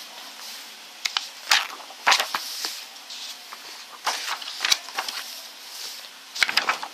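Large photobook pages being turned and handled by hand close to the microphone: four or so short papery rustles with sharp snaps of stiff paper.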